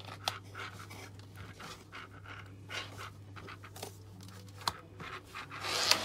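Handling noise as a USB-C cable is fitted into a tablet keyboard's charging port: scattered small clicks and rustles over a faint, steady low hum, with a louder rustle near the end.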